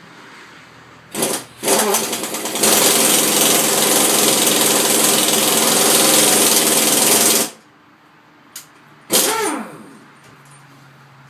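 Impact wrench hammering: two short blips, then a steady run of about five seconds that stops suddenly, spinning a reversed lug nut to draw a new wheel stud fully into the hub. A short burst that falls in pitch follows near the end.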